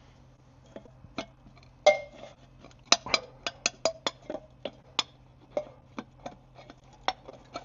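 Sharp metallic clicks and clinks, about fifteen, irregularly spaced and thickest in the middle: a Sterno fuel can and a coated-steel folding camp stove being handled, the can's lid being worked open. One clink near two seconds in rings briefly.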